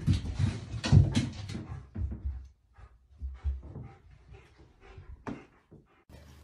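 A few soft knocks and thumps, clustered in the first two seconds, then a couple of fainter thumps and one sharper tap near the end.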